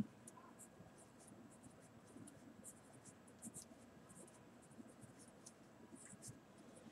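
Faint scratching of a pen writing on graph paper, in many short, irregular strokes.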